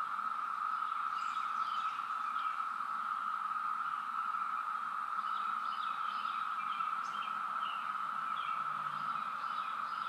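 Chorus of 17-year periodical cicadas: a really loud, steady, unbroken high drone.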